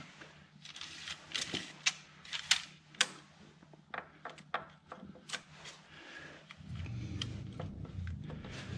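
Light metallic clicks and clinks as a camshaft sprocket is handled and fitted onto the exhaust camshaft of a BMW N62 V8. A low steady rumble comes in about two-thirds of the way through.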